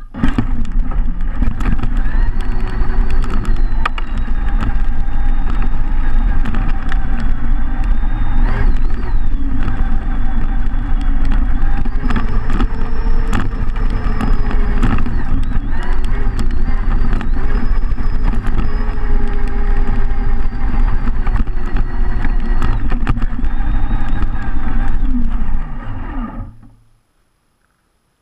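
Radio-controlled car driving with its motor whine rising and falling with the throttle, over the rattle and rumble of the chassis bouncing across gravel and grass. The motor and rattling stop shortly before the end.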